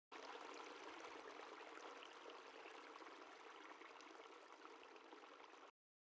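Faint steady background hiss that cuts off abruptly near the end.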